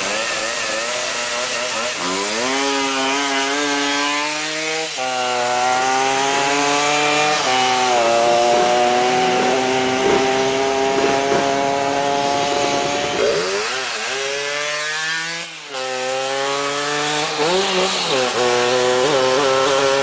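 Tuned Vespa racing scooter's two-stroke engine revving hard under full acceleration, its pitch climbing and then dropping back several times as it shifts up through the gears.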